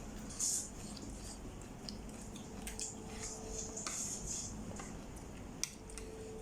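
Spoon or fork clicking and scraping against a plate while eating, with scattered soft rustling and one sharper click about five and a half seconds in.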